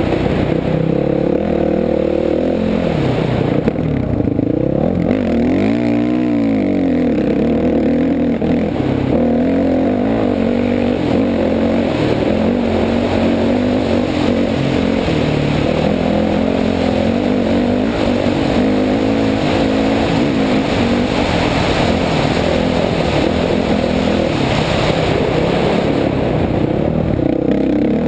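Honda 450 dirt bike's single-cylinder four-stroke engine running hard off-road, its pitch rising and falling with the throttle. The revs drop and climb back steeply about five seconds in.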